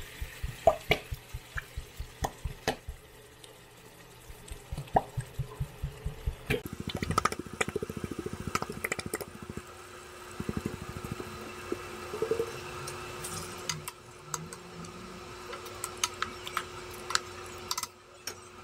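Wooden spatula stirring chunks of pork in sauce in a metal pot: regular soft knocks about four times a second with wet stirring sounds. About a third of the way in the strokes become quicker and denser, with scattered clicks over a faint steady hum.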